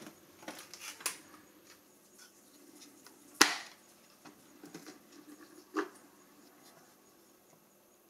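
Plastic clicks and handling noise from the clear dust bin of a Silvercrest cordless cyclonic stick vacuum as it is unlatched from the body and its filter pulled out. A few light clicks come first, a sharp snap a little over three seconds in, and a smaller click near six seconds.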